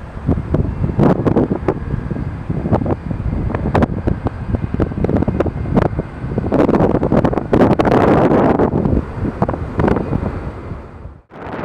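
Strong gusty wind buffeting the microphone, with the rumble of a jet airliner's engines underneath that swells about six seconds in. The sound drops out abruptly near the end, then resumes.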